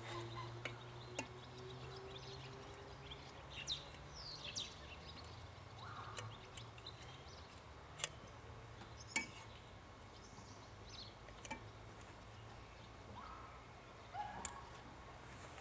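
Quiet background with birds chirping and a low hum that fades away over the first few seconds. Occasional sharp clicks and taps come from an oil can being worked around a stopped stationary engine while it is oiled up before starting.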